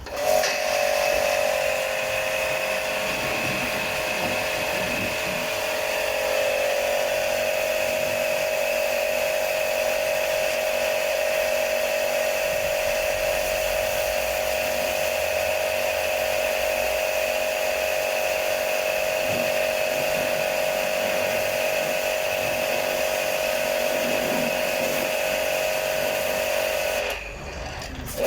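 Washing machine motor spinning the drum, a steady high whine at one unchanging pitch. It starts abruptly and cuts off near the end.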